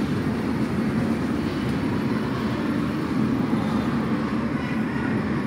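Go-karts running on an indoor concrete track: a steady rumble of motors and tyres going past.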